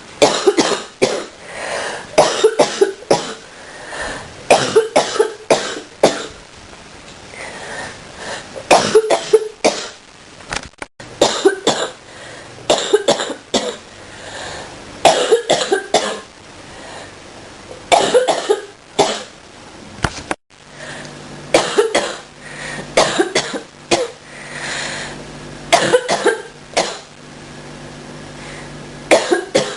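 A person coughing in repeated fits, several sharp coughs in quick succession every few seconds with short pauses between. It is the cough of someone getting over a cold and bronchitis.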